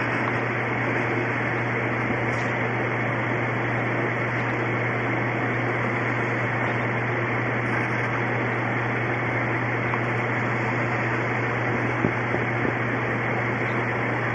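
A steady hiss with a low hum underneath, holding level throughout, and one small click about twelve seconds in.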